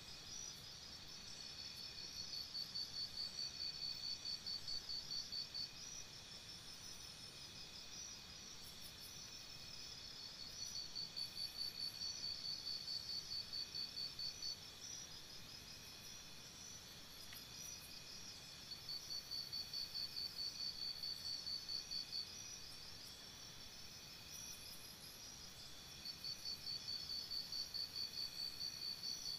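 Insects chirping: bursts of rapid high chirps, each lasting three to four seconds and coming back about every eight seconds, over a steady fainter chirring.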